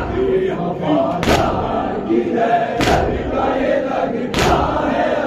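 A congregation of men doing matam, striking their chests in unison with a sharp slap about every second and a half, three times. Men's voices chant the noha in between the strokes.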